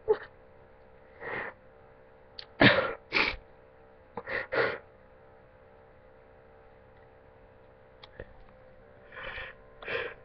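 A person crying hard: short, sharp sobs and catching breaths, the loudest pair about three seconds in, then a quiet stretch before two more sobs near the end.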